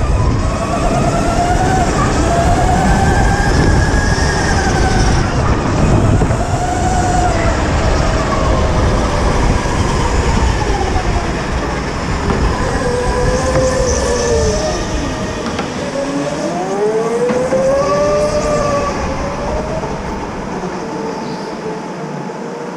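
Electric go-karts running, their motors whining in several pitches that rise and fall with speed over the rumble of the kart on the track. About three-quarters of the way through, the rumble falls away and the sound gets quieter as the kart slows.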